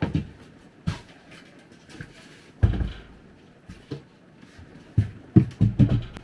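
Wooden knocks and thumps from a storage-bench lid being lifted, moved and set down while things are stowed in the compartment beneath. There is a heavy thump about two and a half seconds in, then a quick run of knocks near the end.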